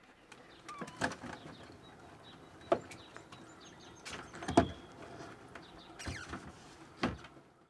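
Plastic lobster crate and wooden board lid being handled in a small boat: four scattered knocks and bumps, the loudest about halfway through, over faint outdoor background.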